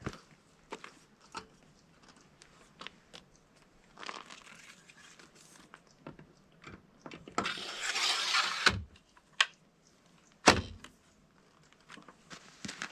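Handling of an electric bike's removable battery pack as it is put back into its frame mount: scattered light clicks, a scraping slide about eight seconds in, and a sharp knock a couple of seconds later.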